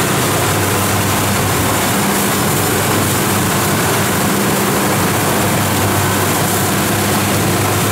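Rice combine harvester running steadily as it moves through the crop, its diesel engine and threshing gear making a loud, even mechanical drone.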